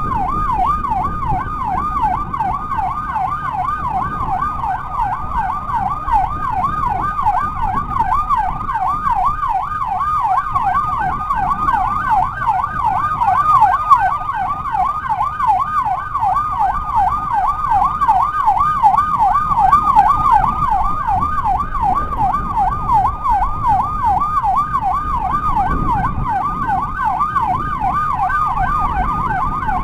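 Electronic emergency siren in a fast yelp, its pitch rising and falling about three times a second without a break, over a low rumble of motorcycle engine and wind.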